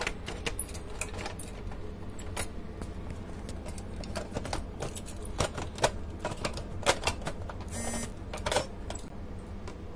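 Irregular clicks and light knocks of hard plastic and metal being handled: a replacement lamp module being seated in a BenQ W1070 projector's lamp bay by its wire handle, over a low steady hum.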